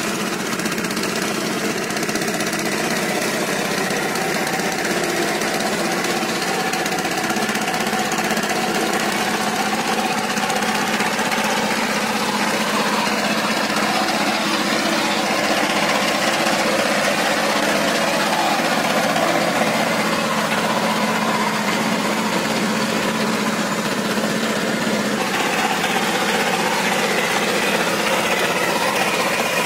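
Power tiller's single-cylinder diesel engine chugging steadily under load as the walking tractor drags its rotavator through wet paddy mud. The sound gets somewhat brighter and closer near the end.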